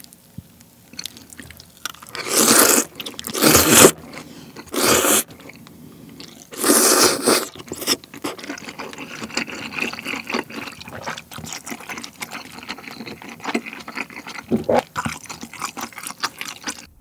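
Udon noodles slurped from a bowl in four loud pulls in the first half, then chewed with many small wet clicks.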